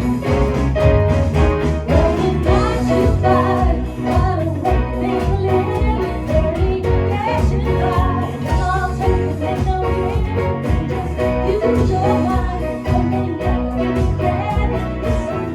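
Live band playing a song with a singer, over a steady drum beat and bass.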